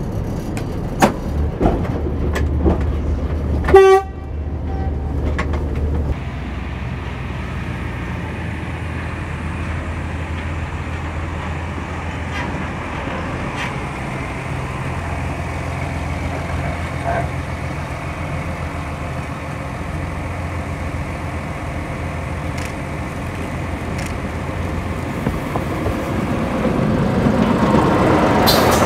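MBxd2 narrow-gauge diesel railcar running. Its engine drones low and steady, with a few sharp clicks and a short horn toot about four seconds in. Near the end the engine grows louder as the railcar passes close.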